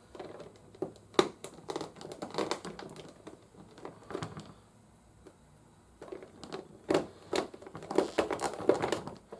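Hard plastic toy parts being handled and pressed together: irregular clicks, taps and rustling, in two spells with a short pause halfway.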